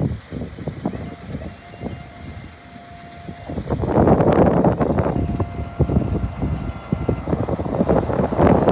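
Hydraulic tail lift on a box truck running its pump as the steel platform is raised and tilted up to level. It gets louder about four seconds in, with wind buffeting the microphone.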